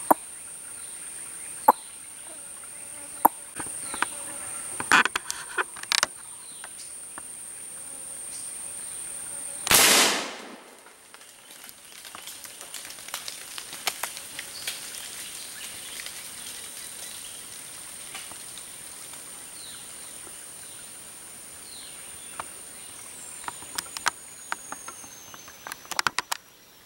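A single shot from a long-barrelled hunting gun fired up into the forest canopy about ten seconds in, the loudest sound, with a short echoing tail. A steady high-pitched insect drone runs under it and stops near the end, with scattered small clicks and snaps.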